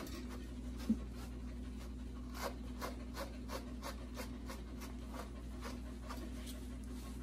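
Slicker brush raking through a dog's curly coat in short repeated strokes, about three a second, brushing the head hair out before trimming. A steady low hum runs underneath.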